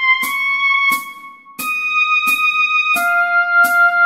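Oboe playing a slow melody of held notes over a steady ticking beat, about one and a half ticks a second. The notes break off briefly about a second in, and a lower note comes in near the end.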